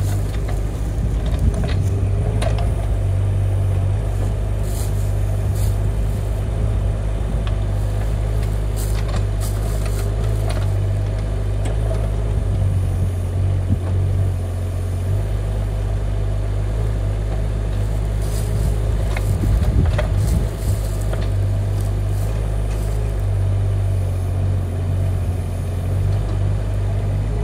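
Mini excavator's Kubota D902 three-cylinder diesel running steadily under hydraulic load while digging, with a low, even drone. Occasional short knocks come from the bucket working the soil.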